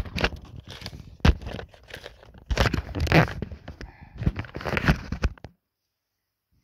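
Stiff card being handled and cut with scissors, crinkling and crunching in irregular bursts with a few sharp snips, stopping abruptly about five and a half seconds in.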